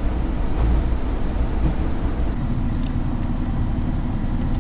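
Steady low rumble of a diesel railcar running along the line, heard from inside the passenger cabin.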